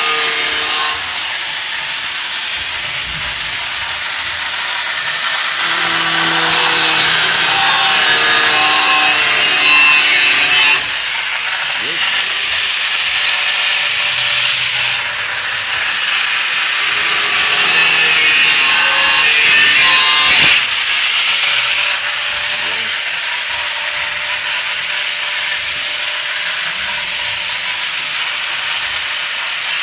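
A power tool running with a steady rasping hiss, stepping louder and softer a few times. Faint voices sound underneath.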